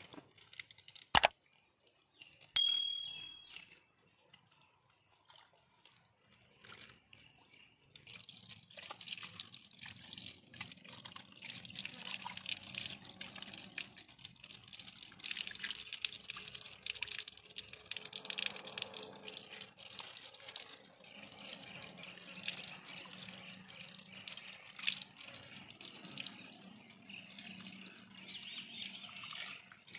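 Water pouring from a pipe and splashing as whole dressed chickens are rinsed under it by hand. The splashing starts about eight seconds in and keeps going unevenly. Two sharp clicks come in the first three seconds, the second with a brief ringing tone.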